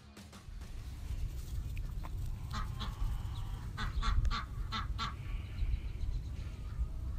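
Backyard poultry calling: a series of short, harsh calls in two quick groups in the middle, over a steady low rumble of wind on the microphone.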